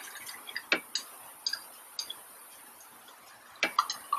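Quiet, scattered wet clicks of eating and sipping through a straw close to the microphone, irregular and bunching up near the end.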